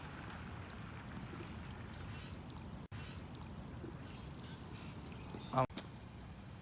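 Floodwaters of the Connecticut River rushing in a steady flow, with one short, loud pitched sound near the end.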